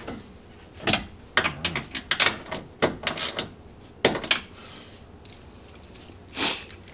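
Ratchet wrench clicking in several short bursts as the new side mirror's mounting nuts are tightened snug.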